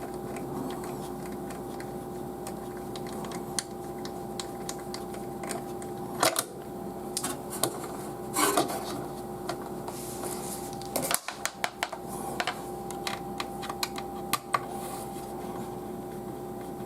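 Scattered small clicks and taps of an M.2 NVMe SSD being handled and fitted into its slot on a motherboard, with a few louder knocks around the middle, over a steady faint hum.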